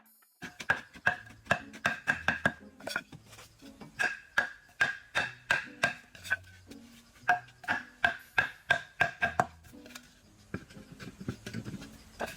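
Rapid chopping strikes of a metal blade into wood, about two to three a second, each with a short metallic ring. The strikes grow sparse about ten seconds in. Soft background music with a low bass line plays underneath.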